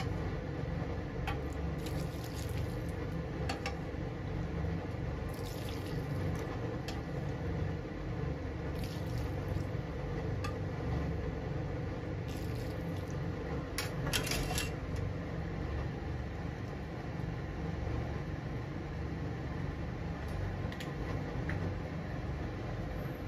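A steady low rushing noise with a faint hum, with a few brief clicks and short hissy bursts scattered through it.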